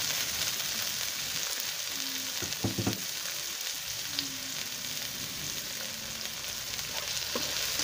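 Chopped onion and garlic sizzling steadily in hot cooking oil in a pan, with a few short knocks about three seconds in.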